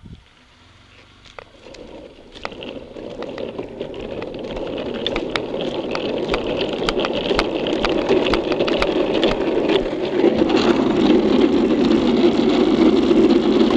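Classic luge board's urethane wheels rolling on asphalt, with wind rushing over the helmet-mounted camera, the noise building steadily from a couple of seconds in as the board gathers speed downhill. Scattered sharp clicks run through it.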